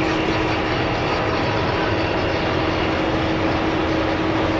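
Giant mining dump truck tipping its load: a steady, loud mechanical rumble with a constant hum, as the raised bed empties rock down the slope.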